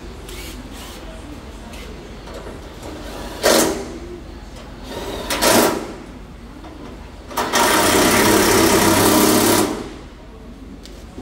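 Handheld power sander worked against the car's raised tailgate: two brief bursts, then about two seconds of steady running that stops sharply.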